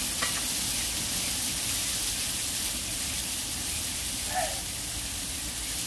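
Meat sizzling steadily as it cooks.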